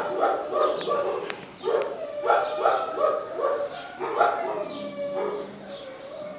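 Puppies play-fighting over a toy, giving long drawn-out whines mixed with quick bursts of yips and barks.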